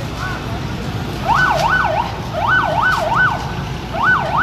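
A vehicle siren going in short bursts of quick rising-and-falling wails, about three sweeps a second, in three groups with short gaps, over a steady low traffic rumble.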